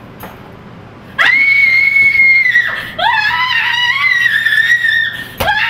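A woman screaming: after about a second of quiet, two long high-pitched held screams, the second wavering, with another starting at the very end.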